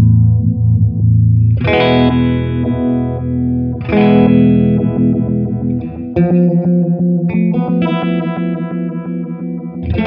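Electric guitar strumming chords through a Mattoverse Just A Phase phaser pedal, the phase sweep colouring the tone. Fresh chords are struck about two, four and six seconds in, each ringing out, with quicker picked notes over the last few seconds.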